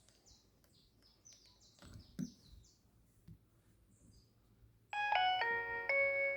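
Nokia 3120 mobile phone playing a bell-like polyphonic ringtone through its speaker, starting about five seconds in as a quick run of chime notes. Before it there are faint high chirps and a sharp click about two seconds in.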